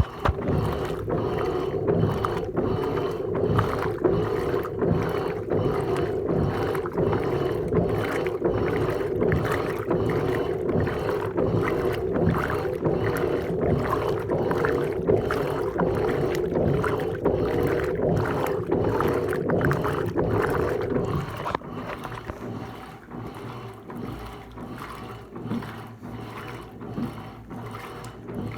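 Electrolux LTC15 Turbo top-load washing machine agitating clothes in water: a steady motor hum under regular swishes of water. The hum stops about 21 seconds in, leaving quieter water sounds.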